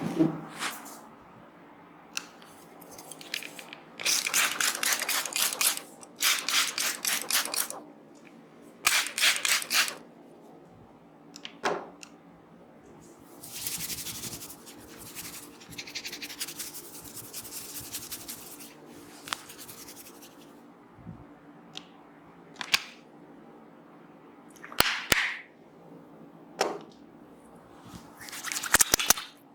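Head massage by hand: three bursts of fast, rhythmic patting on the scalp and hair, a longer stretch of rubbing, and scattered single sharp pats or clicks.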